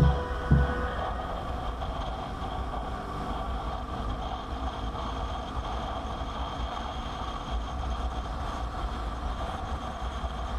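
Motorcycle riding along: steady engine and road noise with a constant low rumble.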